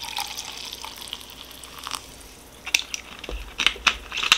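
Seltzer poured from a plastic bottle into a glass of chocolate syrup and half-and-half, splashing and fizzing as it foams up. The pour stops about two seconds in, followed by a few sharp clicks and a knock.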